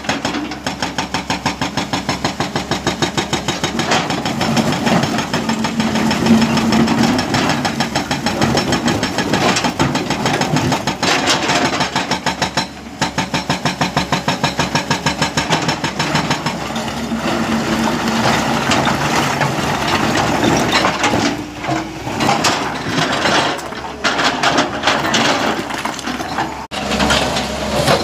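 Hydraulic rock breaker on an excavator hammering hard rock: rapid, evenly repeated blows over the running diesel engine, stopping and starting several times.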